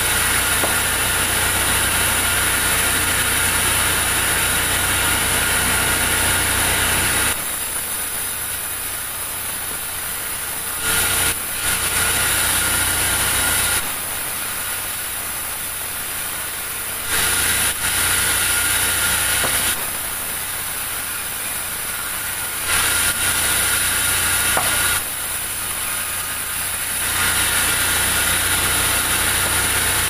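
Large vertical band saw sawing a big log into slabs: loud sawing noise over a steady high whine, in one long stretch and then several shorter ones, with the quieter run of the saw between the cuts.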